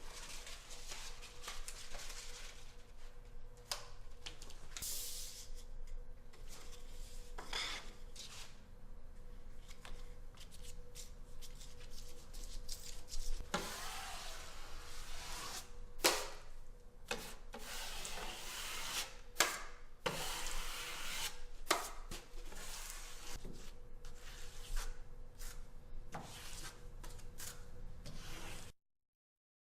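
Metal drywall knife scraping and spreading joint compound over corner tape in an inside corner, in repeated irregular strokes with a few sharp knocks of the blade. The sound stops abruptly near the end.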